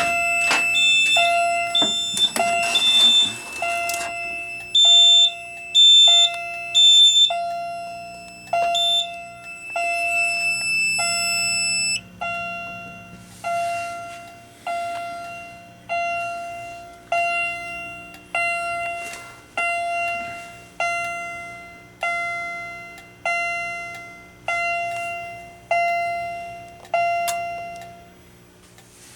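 A Wheelock CH70 fire alarm chime striking a decaying chime tone about once a second, with the fire alarm panels sounding in alarm. For the first twelve seconds the panels' buzzers add a steady high tone and a faster pulsed beep. The buzzers stop about twelve seconds in, and the chime stops shortly before the end.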